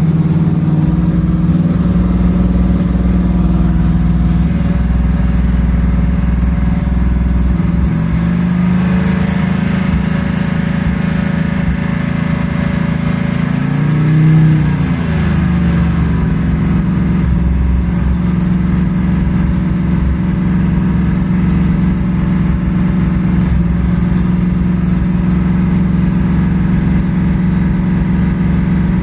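1984 Ford Mustang 5.0 V8 engine running steadily with a misfire, revved briefly once about halfway through. The misfire comes from a failing ignition primary (12-volt) circuit: the pickup coil is going, after the ignition module had already failed.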